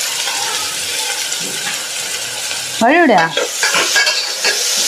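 Chopped onions, green chillies and curry leaves sizzling steadily as they fry in hot oil, stirred with a spatula.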